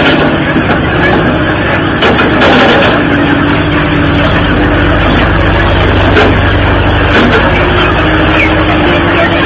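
An engine running steadily and loud.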